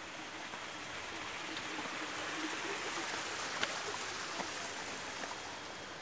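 Steady rush of flowing stream water, swelling slightly in the middle, with a couple of short sharp ticks.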